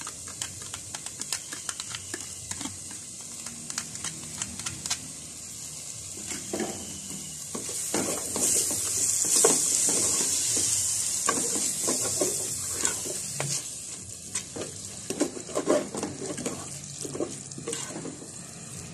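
Fried onion, mint and coriander sizzling in a hot enamel pot as yogurt is stirred in with a wooden spoon, the spoon clicking and scraping against the pot. The sizzle grows louder for a few seconds in the middle.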